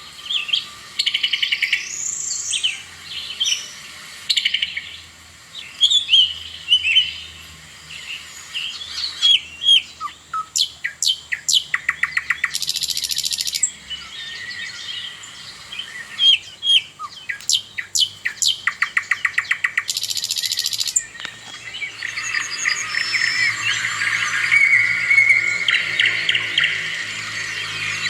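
Several songbirds singing and chirping: varied whistled phrases and trills, quick runs of repeated sharp notes, and twice a short buzzy burst. The chirping thickens into a denser chorus near the end.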